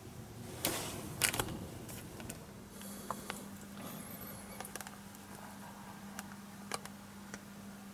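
Scattered sharp clicks and taps close to the microphone, the loudest about a second in, over a faint steady low hum that begins a couple of seconds in. A brief faint high warble sounds about halfway through.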